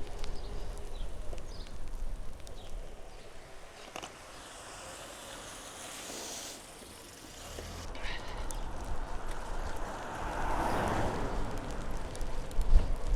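Wind buffeting the microphone of a moving bicycle. It eases off in the middle, then builds into a strong gust from the side near the end.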